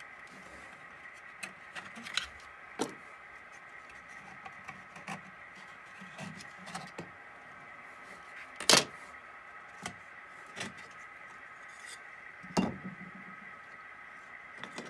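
Light clicks and knocks of magnet-held model lumber loads being lifted off model center-beam flat cars and set down, the loudest knock about nine seconds in and another near thirteen seconds. A faint steady hum runs underneath.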